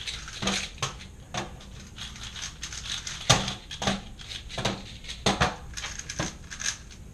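Rubik's cube being turned fast: a run of irregular plastic clicks and clacks, a few a second, with one sharper clack a little after three seconds in.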